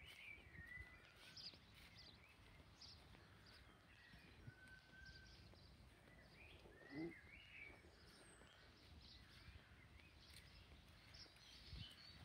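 Quiet garden ambience with faint, scattered birdsong: short chirps and brief calls, and one brief low sound about halfway through.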